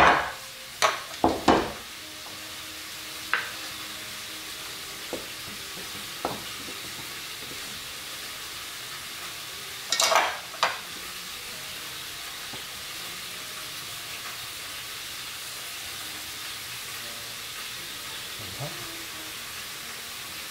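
Wooden spoon knocking and scraping against an enamelled cast-iron pot while rice is spooned out onto a platter: a cluster of knocks near the start, a few single taps, and another cluster about ten seconds in, over a steady hiss.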